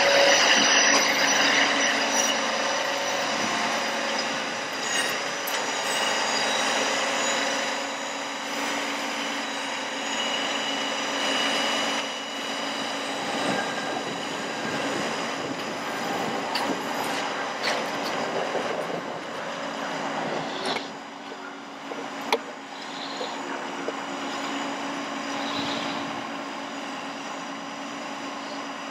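Bucket truck running with its PTO engaged, its hydraulic system giving a steady whine as the aerial boom raises. A single sharp click comes about three-quarters of the way through.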